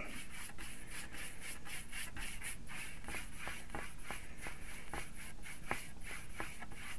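Paintbrush scrubbing acrylic paint across a hardboard panel: a rapid series of short scraping strokes, several a second.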